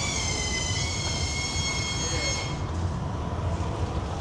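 A high-pitched squeal that holds steady and dips slightly in pitch, stopping after about two and a half seconds, over a steady low hum.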